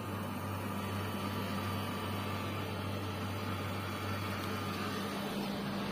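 Voltas tower air conditioner's indoor blower running at full speed, a steady rush of air with a low hum, the unit freshly started and cooling. The lowest part of the hum weakens near the end.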